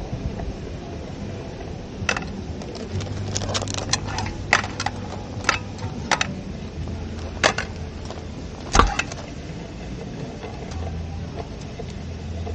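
A string of irregular clicks and knocks, with one louder thump about nine seconds in, over a low steady hum.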